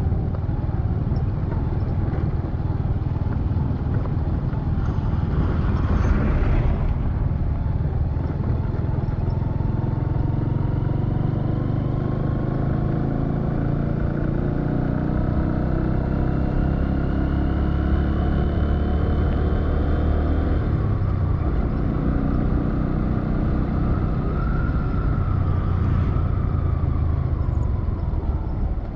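Motor vehicle engine running steadily on the road, its pitch shifting as it drives, with another vehicle passing loudly about six seconds in.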